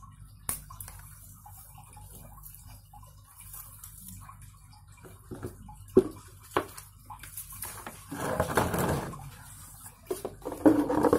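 Handling noise around a potted maidenhair fern: scattered light taps and clicks, then about a second of scraping and rustling around eight seconds in as the pot and camera are moved, with more rustling and knocks near the end.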